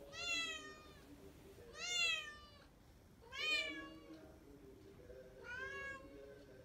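A cat meowing four times, a drawn-out call every second and a half or so, each one rising and then falling in pitch.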